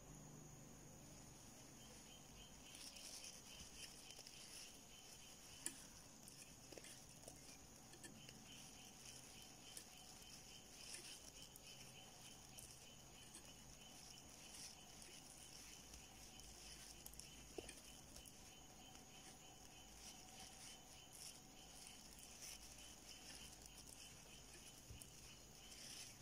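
Near silence: soft, scattered clicks and rustles of yarn being worked with a plastic crochet hook, over a faint, high, pulsing tone.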